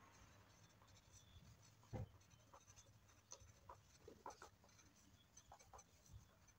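Faint scratching of pencils writing on paper held on clipboards, with scattered soft taps and a single low knock about two seconds in.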